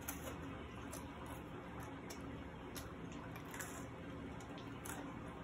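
Quiet room tone with a few faint, brief clicks and taps.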